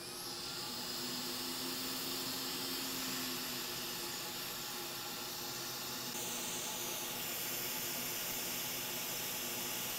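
Hot air rework station blowing a steady hiss onto a graphics card's memory chip to melt its solder for removal.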